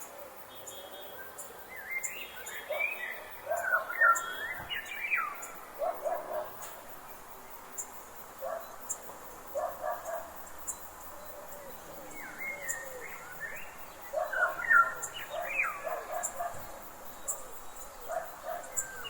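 Forest birds singing in two bouts of whistled, sliding notes mixed with short, quickly repeated lower chirps, over a faint steady background hiss.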